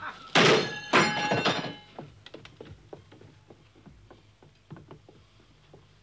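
Hand pump's large iron wheel and mechanism: two loud metallic clanks that ring on for about a second, followed by a run of light, irregular ticks that fade out.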